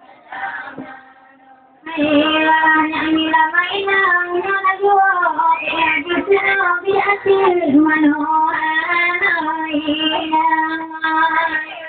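A single high voice singing a slow, drawn-out melody with long held notes and gliding pitch bends. It comes in loud about two seconds in, after a short stretch of quieter talk.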